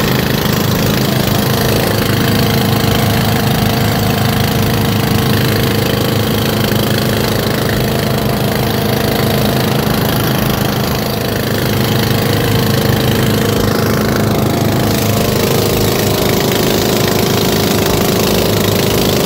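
A fishing boat's engine running steadily at a constant speed, with a slight dip in level about eleven seconds in.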